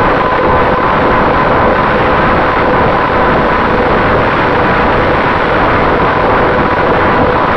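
Finwing Traveler FPV plane's electric motor and propeller running steadily in cruise, heard from the onboard camera as a thin steady whine under heavy wind rush.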